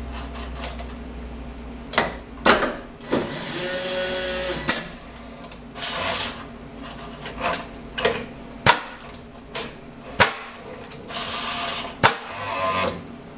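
Torus PRO milling machine's automatic tool changer and power drawbar at work: a series of sharp metallic clunks, with two longer bursts of air hissing, each about a second and a half, as the drawbar releases and clamps tools. A low steady machine hum runs underneath.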